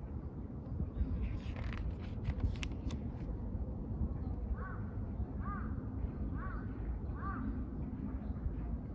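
A crow cawing four times, about one call a second, over a steady low rumble. Just before the calls, a short spell of paper rustling as a book's pages are handled.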